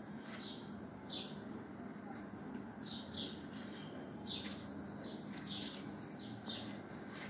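Small birds chirping: short, high, falling chirps repeated irregularly, over a faint steady hum.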